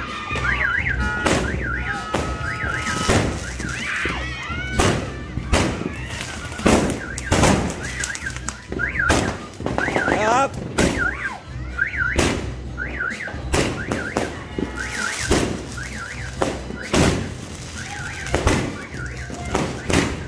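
New Year's midnight firecrackers and fireworks going off, a string of sharp bangs at uneven intervals, over a high electronic warble that rises and falls again and again.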